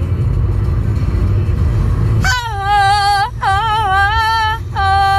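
Low, steady road rumble inside a moving car, then, from about two seconds in, a woman singing unaccompanied in long held notes, three phrases with short breaks between them.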